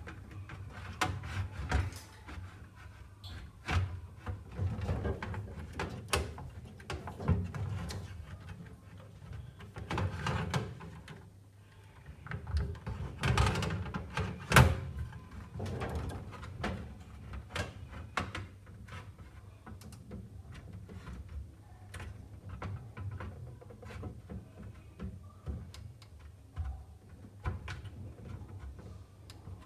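Irregular clicks, knocks and scrapes of hands and a screwdriver working on a DVR's metal case while its hard-disk mounting screws are refitted.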